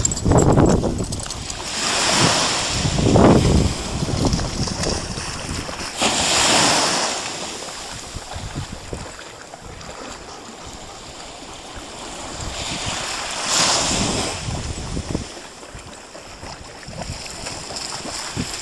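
Sea washing in the shallows, with gusts of wind on the microphone, swelling and easing every few seconds.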